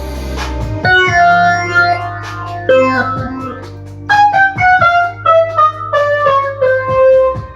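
Ensoniq TS-12 keyboard playing an electric-piano-style melody in stepwise descending phrases, over a steady bass line and a drum beat. A new phrase enters about a second in and another about four seconds in.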